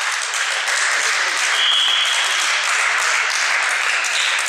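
Steady hand clapping from players and spectators, with a short high-pitched tone about a second and a half in.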